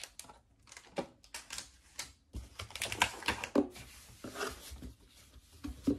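Hands rummaging in a cardboard box, with a run of quick clicks and taps and a stretch of scraping against the cardboard about halfway through.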